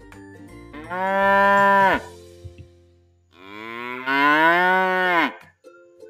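A cow mooing twice: two long calls, the second longer, each dropping in pitch at its end. Faint light background music runs under and between them.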